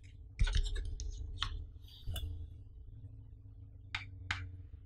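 Unboxing handling sounds: paper leaflets shuffled and set down with a knock about half a second in, then clicks and taps of the hard plastic JLW battery case for the Samsung S8 as it is lifted from its box and handled, with two sharp clicks near the end.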